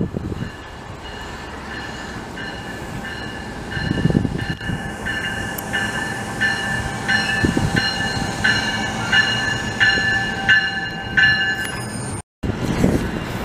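Bilevel commuter train pulling into a station and running past: a steady rumble of the cars with a high ringing that pulses evenly about three times every two seconds over the second half.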